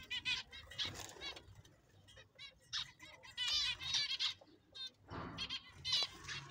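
Zebra finches calling: a chatter of many short, nasal chirps in quick clusters, thinning out briefly about two seconds in before picking up again.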